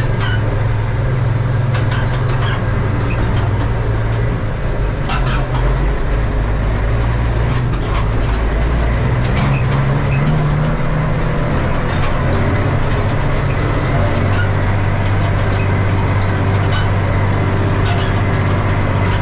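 Valmet 118 tractor's straight-piped diesel engine running steadily under load, pulling a seed drill. Its note wavers, rising briefly about halfway through.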